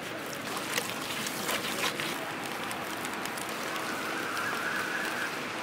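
A hand squishing and stirring a wet cornflour-and-spice masala paste in a steel bowl, a steady wet squelching with a few light clicks.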